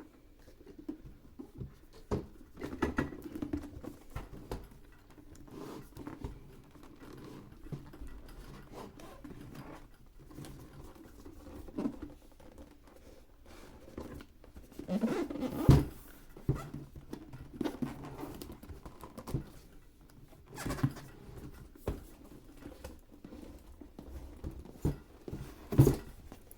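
A toy car's box being opened and its packaging handled: scattered scraping, rustling and light taps, with sharper knocks about halfway through and again near the end.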